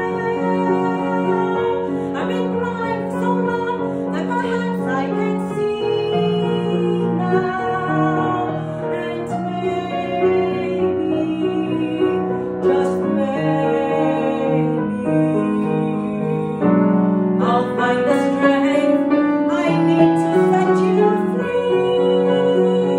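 A woman singing a musical theatre song, with long held notes and vibrato, accompanied by a grand piano.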